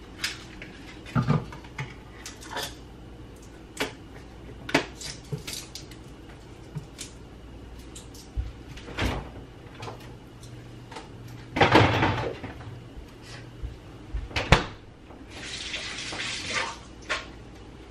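Kitchen handling noises: scattered clicks and knocks of utensils and containers, a louder clatter of about a second partway through, and a short hiss near the end, over a low steady hum.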